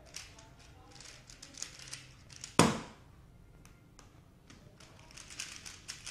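Rapid plastic clicking and rattling of a Dayan ZhanChi 3x3 speed cube being turned, with one loud thump about two and a half seconds in.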